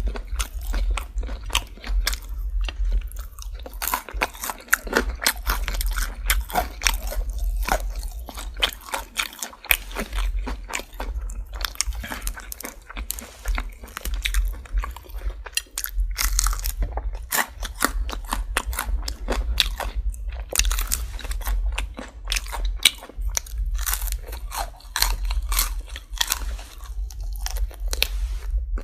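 Close-miked chewing and biting of crispy fried chicken: dense, irregular crunches and crackles of the breading, continuing without pause.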